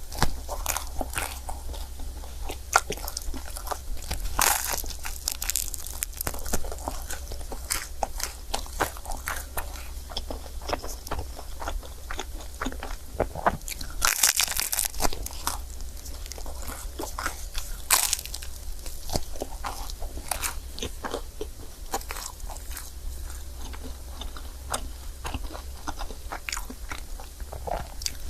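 Close-miked biting and chewing of a crepe: a steady run of short, sharp clicks of the mouth and food, with a few louder bites spread through.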